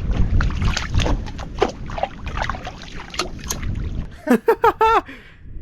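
Sloshing and splashing in shallow, muddy water, with scraping and knocking as a crab hook is worked through mud and water. About four seconds in, a man's voice gives a few short exclamations.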